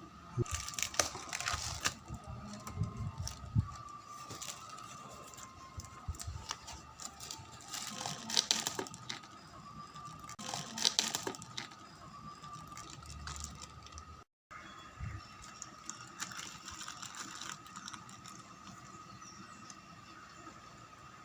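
Light clicking and rustling of objects being handled, in a few bunches, over a faint steady high whine.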